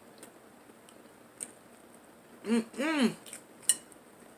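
Light clicks and taps of crab shells and utensils as a seafood boil is picked through. Two short hummed voice sounds come a little past halfway.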